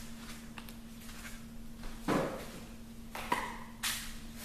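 Faint knocks and clicks of small bottles and tools being handled on a workbench, with a louder knock about two seconds in, over a steady low hum. A short hiss comes near the end.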